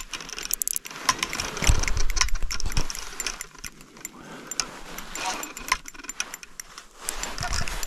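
Small ice-fishing reel being cranked, with a run of irregular clicking and rattling as a hooked arctic char is reeled up through the ice hole.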